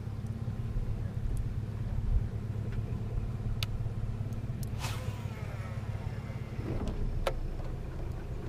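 Boat motor running steadily with a low hum, with a few sharp clicks and a brief swishing sweep about five seconds in.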